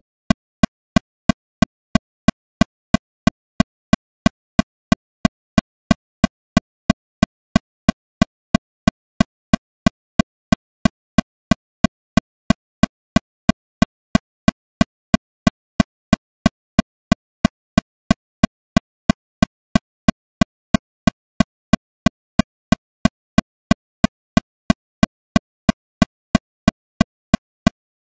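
Metronome clicking steadily at 182 beats per minute, about three evenly spaced clicks a second, all at the same strength.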